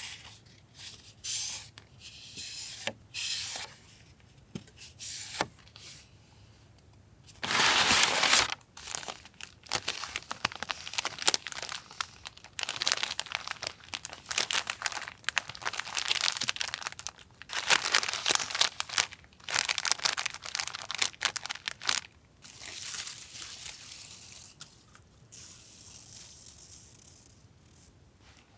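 Stationery packaging handled and opened by hand: intermittent crinkling and tearing rustles, with one loud burst about eight seconds in and a dense stretch of crinkling through the middle.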